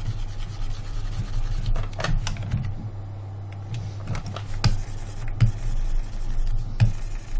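Scattered computer key and mouse clicks, a few seconds apart, over a steady low electrical hum.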